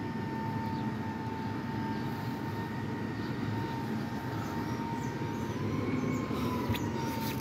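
Mack MRU Heil rear-loader garbage truck running while it picks up dumpsters: a steady low rumble with a thin, steady whine over it that rises slightly near the end.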